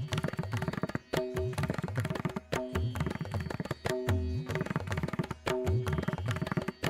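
Background music led by hand-drum strokes, with low drum notes that bend in pitch. The pattern repeats in a steady cycle about every second and a half.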